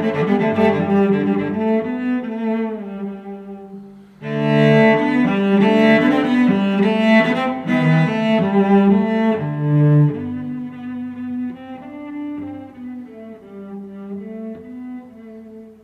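Background instrumental music with bowed strings, swelling fuller and louder about four seconds in and softening after about ten seconds.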